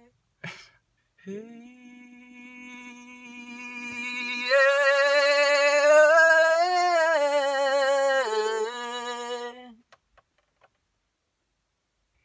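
A person singing long held notes without accompaniment inside a car, getting louder, stepping up to a higher note with a wobbling vibrato about four seconds in, then dropping back down and breaking off about ten seconds in.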